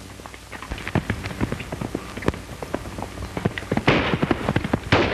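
Horses galloping with rapid hoofbeats, then two gunshots about a second apart, fired from horseback, each leaving a hissing tail.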